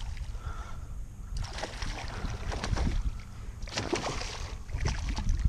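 Hooked striped bass thrashing and splashing at the water's surface beside a kayak, in several bouts of splashing over a steady low rumble.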